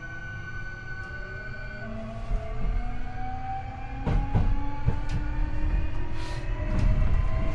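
Hankyu 8300 series train's Toyo IGBT-VVVF inverter and traction motors heard from inside the car, several whining tones rising steadily in pitch as the train accelerates. A steady high tone drops out about two seconds in. From about four seconds in, a few sharp knocks of the wheels over rail joints.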